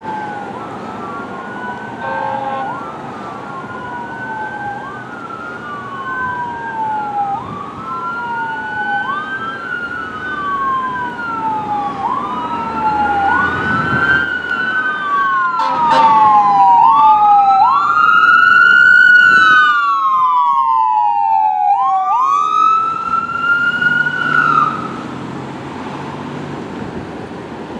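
Fire engine siren wailing on a code 3 response, two overlapping tones each sweeping up and down in pitch every couple of seconds. It grows louder as the engine approaches, is loudest as it passes, drops in pitch as it goes by, and cuts off about 25 seconds in. Engine and traffic noise run underneath.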